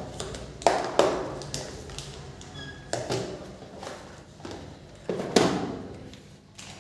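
Sharp taps and knocks of small tools and phone parts being handled on a hard work surface during a phone speaker replacement, about five in all. A short faint beep sounds about two and a half seconds in.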